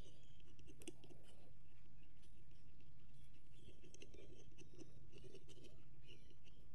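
Pencil scratching on a wooden board in short, irregular strokes as it traces the outline of a metal spatula, with the metal shifting lightly against the wood, over a steady low hum.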